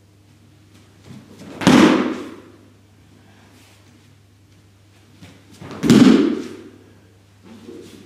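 Two heavy thuds on the dojo mat about four seconds apart, each lasting about half a second, as a barefoot aikido student moves across it.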